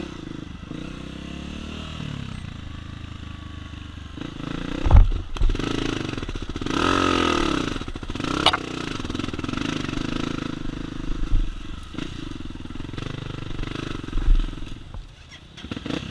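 Single-cylinder four-stroke 250 cc trail-bike engine running at low revs, revving up and back down once about halfway through. A few dull knocks sound around it, one a little before the rev and one near the end.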